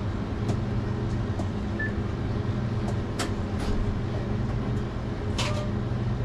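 A steady low mechanical hum of machinery or an idling engine, with a few scattered clicks and taps, the clearest about three seconds in and near the end.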